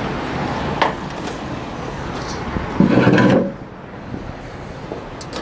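Strong wind blowing across the microphone, a steady rushing noise. About three seconds in comes a short, loud rumbling knock, after which the wind noise drops away.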